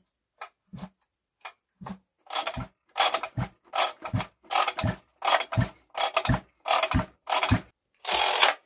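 Husqvarna 562XP chainsaw engine turned over slowly by its starter rope as the saw drops under its own weight: a few faint clicks, then from about two seconds in a steady run of about ten strokes, a rush and a thump every half second or so as the piston goes over compression. The saw is a compression check; the owner judges the engine worn loose.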